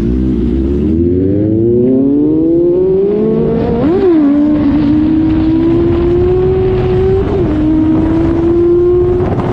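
Motorcycle engine heard from the saddle, pulling up through the revs. The pitch drops sharply at two gear changes, about four and seven seconds in, then holds fairly steady while cruising.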